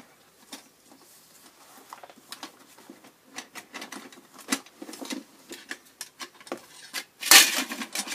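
Packaging being handled and unwrapped from a cardboard box: paper and plastic wrapping rustling and crackling in short irregular bursts, loudest about seven seconds in as a wrapped metal pot is pulled free.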